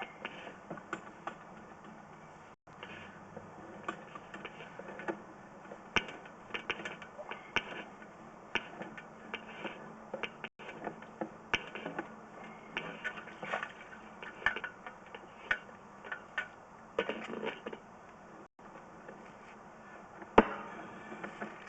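Irregular mechanical clicking and rattling, sharp clicks scattered unevenly throughout over a faint steady hum, with one louder knock near the end.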